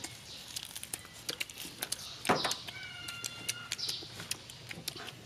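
Wet lip-smacking and chewing of people eating pork ribs with their hands: a rapid run of smacks and clicks, loudest about two seconds in. A thin, high, held cry lasting just under a second comes shortly after.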